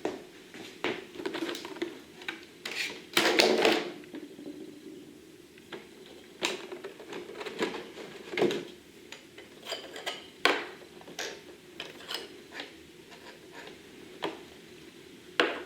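Irregular clicks, taps and clatter of a hard-plastic radio-control transmitter and its parts being handled, with a louder, longer clatter about three seconds in.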